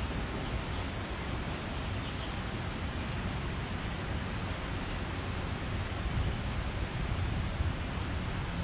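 Steady rushing noise with an uneven low rumble: wind on the microphone.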